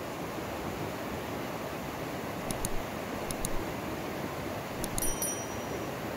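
Steady rush of a fast mountain river. Over it sit the sound effects of a subscribe-button animation: two quick pairs of mouse clicks, then around five seconds in more clicks and a short bell-like notification chime.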